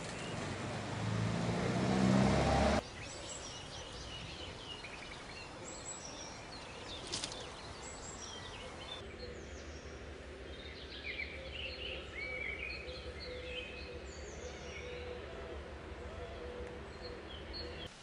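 A vehicle passing along the street with its engine note rising, cut off abruptly about three seconds in. Then small birds chirping in scattered bursts over quiet outdoor ambience, with a steady low hum joining about halfway through.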